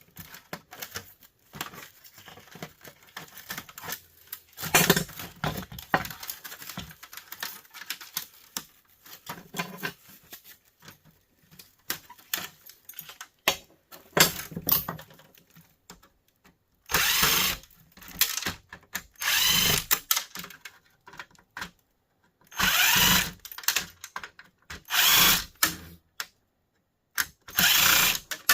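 Power drill-driver backing screws out of a plastic heater housing in five short bursts of about a second each, after a spell of clicking and rattling as plastic parts are handled.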